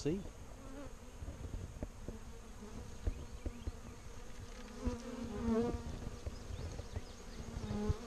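Swarm of honey bees buzzing steadily around their cluster on a tree limb, with the buzz swelling louder about five seconds in.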